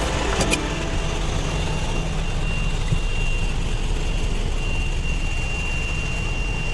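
Steady low rumble of an engine running, with a thin, steady high whine that sets in about half a second in and a couple of light clicks near the start.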